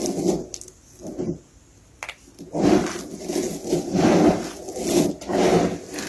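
Dry bar soap being crushed and crumbled, a run of crunching, scraping strokes, each under a second, with short pauses between them.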